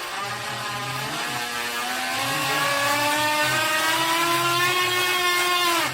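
Electric motor of a DEERC remote-control boat whining, its pitch rising over a couple of seconds as it speeds up and then holding high. It cuts off abruptly at the very end.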